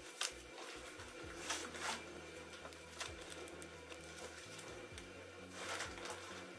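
Groceries being unpacked onto a counter: a few brief rustles of a shopping bag and light knocks as boxes and an egg carton are set down, the longest rustle near the end, over a faint steady hum.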